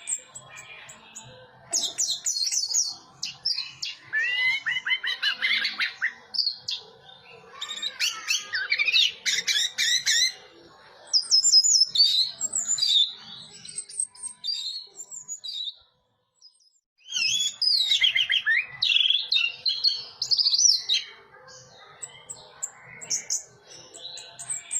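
Orange-headed thrush singing a long, varied song of rapid whistled and twittering phrases with quick up-and-down sweeps, broken by short pauses and one brief full break about two-thirds of the way through.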